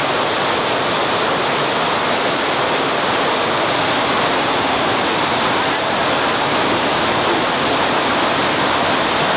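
Muddy floodwater rushing through a river channel in spate after heavy rain: a steady, loud, unbroken rush of turbulent water.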